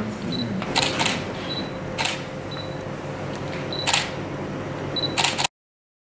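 Camera shutters clicking at irregular intervals, about six clicks, with short high beeps between them. The sound cuts off suddenly about five and a half seconds in.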